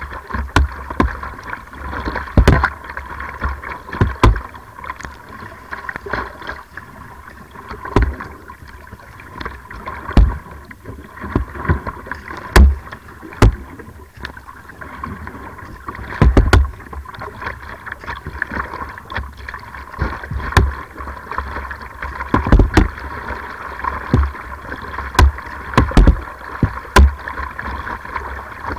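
Kayak paddle strokes splashing and water rushing along the hull of a slalom kayak, heard from the bow deck, with irregular sharp thumps and knocks every second or two.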